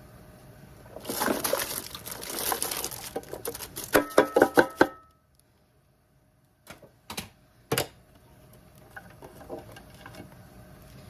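Chopped onion tipped into a slow cooker pot, pattering and rustling as the pieces fall, then about six sharp knocks with a ringing note from a container or utensil tapped against the pot. A few single clicks follow later.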